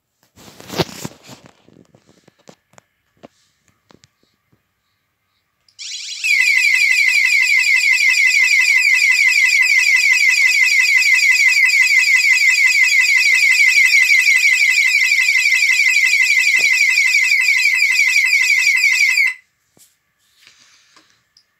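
Orisec CP-10 alarm system's sounder going off: a loud, fast electronic warble of rapidly repeated rising sweeps. It starts about six seconds in and cuts off suddenly about thirteen seconds later. Before it there is a brief rustle of handling noise.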